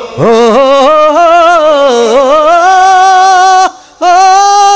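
A man singing solo with no accompaniment. He sings an ornamented line with wavering pitch, then holds a long note that breaks off briefly about three and a half seconds in before another held note begins.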